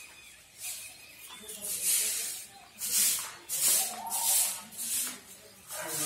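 Footsteps scuffing over a dusty, gritty concrete floor: a short, sharp hiss with each step, roughly one a second.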